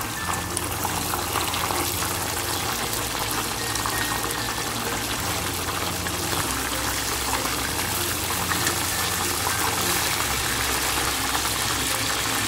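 Whole tilapia deep-frying in hot oil in a wok: a steady, loud sizzle with small crackling pops throughout.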